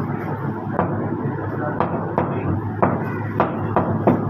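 Meat cleaver chopping mutton on a wooden log chopping block: about seven sharp knocks at uneven spacing, over steady background noise.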